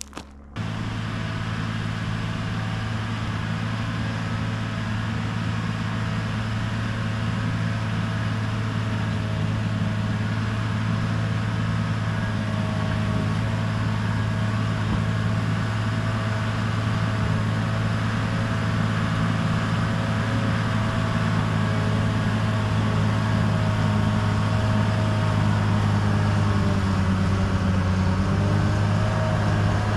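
Bulldozer's diesel engine running steadily at working speed, with a slight shift in pitch near the end.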